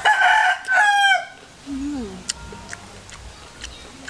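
A rooster crowing once: a loud call lasting just over a second, in two parts, the second dropping in pitch at the end.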